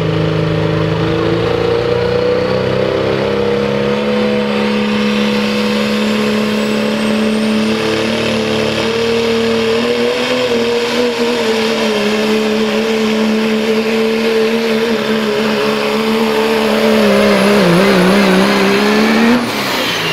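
Dodge Ram pulling truck's Cummins diesel engine running flat out under full load as it drags a pulling sled, its pitch holding steady with a faint rising whine above it. Near the end the pitch wavers and the sound gets louder, then it cuts off suddenly.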